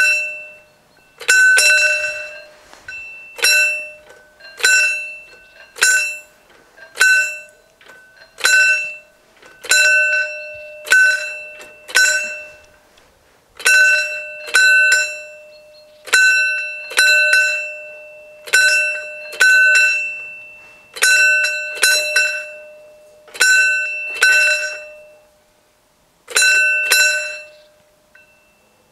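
Level crossing's warning bell ringing: single struck rings at an uneven pace of about one a second, each dying away, with two brief pauses. It is the crossing's warning of an approaching train.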